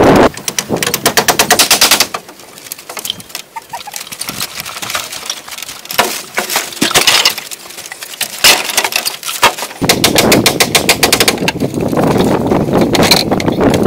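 Rapid rattling runs of sharp knocks from hand tools striking wood, in three bursts. A steady rushing noise fills the last few seconds.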